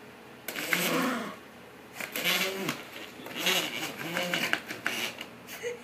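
Toy poodle growling and barking at the game in about five harsh, snarling bursts, each under a second, with short pauses between.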